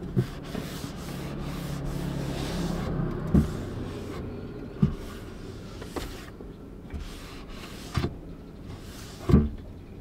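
Cloth wiping a wooden tabletop, a rubbing swish that fades after the first few seconds, with several sharp knocks on the table, the loudest near the end.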